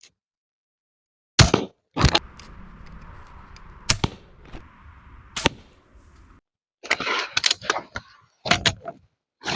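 A crossbow being shot repeatedly: a series of sharp cracks and thuds, a few spaced out, then a quick cluster near the end.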